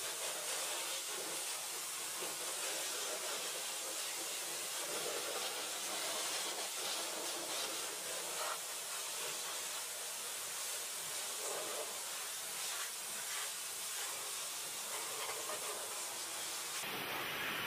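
Pressure-washer lance spraying water over a car's bodywork, a steady hiss, rinsing the shampoo off the car.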